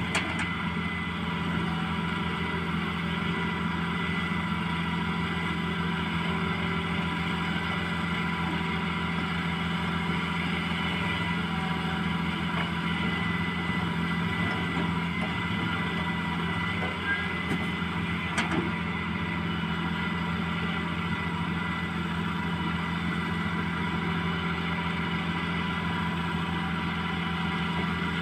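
Excavator's diesel engine running at a steady speed, with one brief sharp click about two-thirds of the way through.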